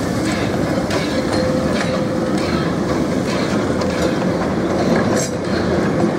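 Vintage railway passenger carriages rolling past on street-running track, wheels clicking over the rail joints in an irregular clickety-clack over a steady rumble, with a faint steady whine.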